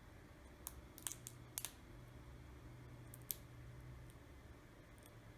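A few small, sharp clicks and taps from handling small parts and tools on an opened tablet: a quick cluster about a second in and one more a little past three seconds, over faint room hum.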